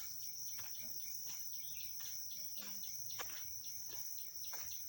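Steady high-pitched shrill of a forest insect chorus, with faint scattered clicks and ticks underneath.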